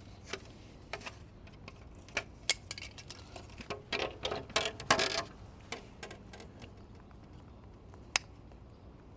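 Hard plastic clicking and rattling as a wheel center cap is handled and fitted into a plastic wheel skin, with a flurry of knocks about four seconds in and one sharp click near the end.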